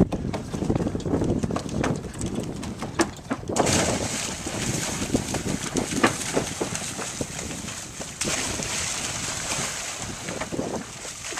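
Bare feet thudding in quick footfalls on wooden dock planks, then from about three and a half seconds in a steady rushing hiss of wind buffeting the microphone covers everything.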